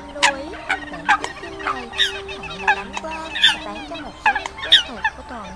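A flock of Eurasian coots calling over one another: quick, sharp, high notes several times a second over lower, drawn-out nasal calls that hold or slide up and down in pitch.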